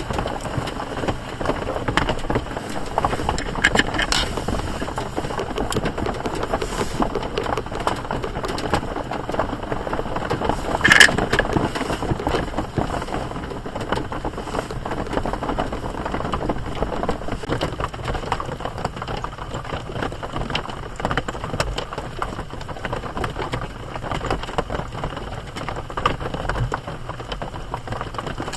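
Steady rain falling on a tarp, with a dense patter of individual drops ticking on the fabric. About eleven seconds in there is one short, sharp clink.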